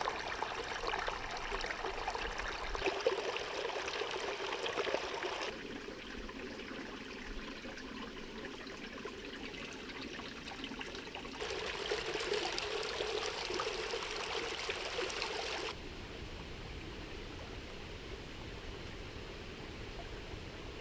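Stream water flowing steadily. It is louder for the first five seconds and again from about eleven to sixteen seconds in, and fainter in between and near the end, with sudden changes in level.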